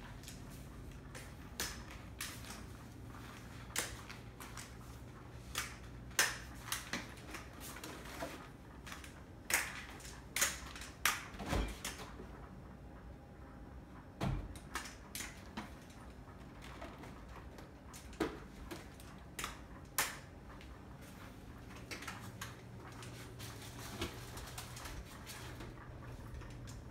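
Irregular knocks and taps of crutch tips on a tile floor, mixed with fridge-door and container handling, over a low steady hum.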